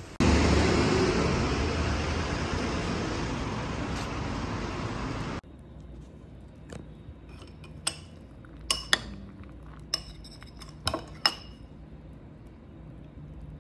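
A loud rushing noise for about five seconds, slowly fading and then cut off sharply. After it, a metal spoon clinks against a ceramic cereal bowl about six times, each clink ringing briefly.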